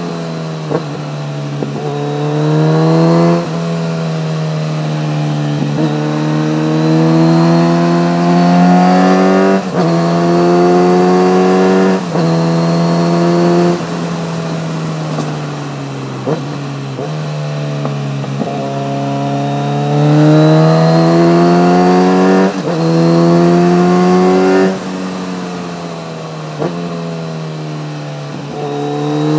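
Kawasaki Z900RS inline-four engine running through an Akrapovic titanium slip-on muffler with stainless-steel headers, heard from the bike while riding. The pitch climbs steadily in each gear and drops at each gear change, with stretches where the throttle is eased and the note falls.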